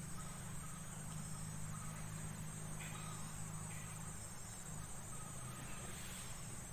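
Faint background: a steady high-pitched chirring of insects over a low steady hum.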